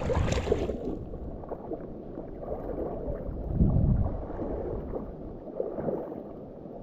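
River water sloshing and gurgling close to the microphone, turning muffled about a second in, with a heavier low slosh a little past the middle.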